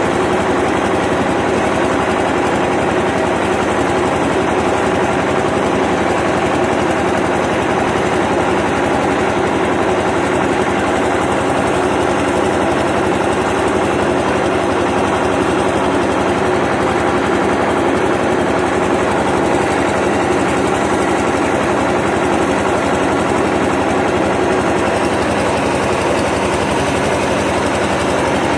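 Ursus 1201 tractor's six-cylinder diesel engine running steadily under load while pushing hay, heard from the tractor with a constant rattle and vibration.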